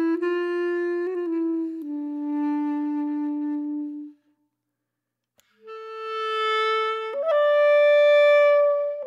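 Solo saxophone playing a slow, sad melody of long held notes. A phrase ends about four seconds in, and after a short pause a new phrase starts and climbs higher.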